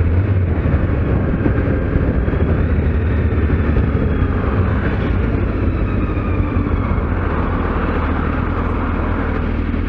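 Kawasaki Z750S inline-four engine running steadily on the move, with a steady low hum under an even rush of wind and road noise from a bike-mounted camera.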